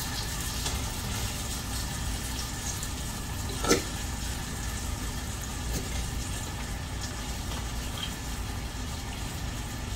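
Browned hamburger patties sizzling in a hot deep pan as Italian dressing is poured over them, over a steady low hum. A single sharp click comes a little under four seconds in.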